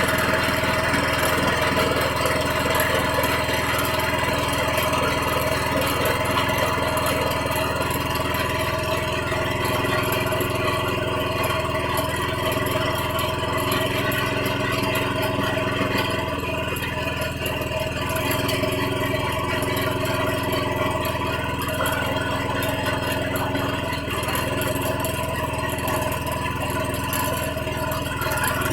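Small petrol engine of a peanut grinding machine running steadily at an even speed.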